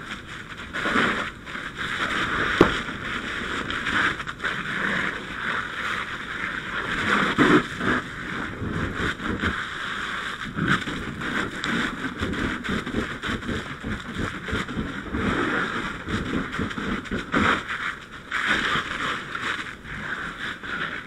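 Fire hose nozzle flowing water from a handline: a steady rushing hiss that swells and eases, with a few knocks and thumps along the way.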